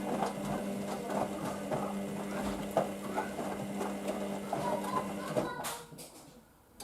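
Hoover washing machine drum turning during the wash: a steady motor hum with clothes and water tumbling and clicking inside. The motor stops about five and a half seconds in, as the drum pauses between turns.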